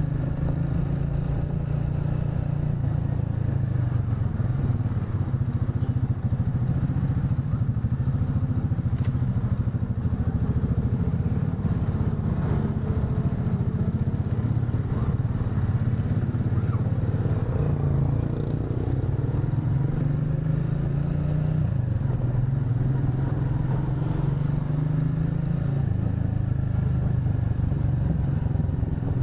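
Motorcycle engine running steadily under way, its hum rising and falling slightly in pitch.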